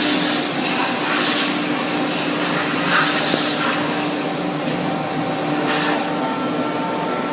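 Citizen L20 Type VII CNC Swiss-type lathe running: a steady machine hum with a constant tone, overlaid by several bursts of hiss that stop about six seconds in.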